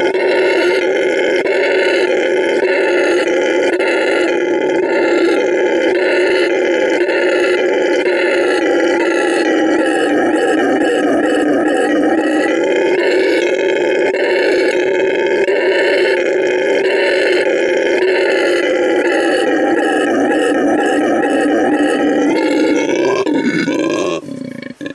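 Male red howler monkey roaring loudly in one long, unbroken roar that stops abruptly near the end.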